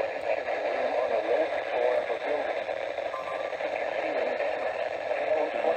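Weak NOAA Weather Radio broadcast on a WR120 weather radio receiver: a muffled voice buried under steady static hiss.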